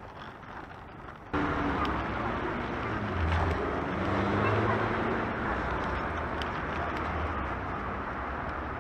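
Riding noise from an Oxelo Town 9 EF V2 kick scooter on a city sidewalk: a steady rolling rumble mixed with street traffic. It gets abruptly louder a little over a second in and stays loud.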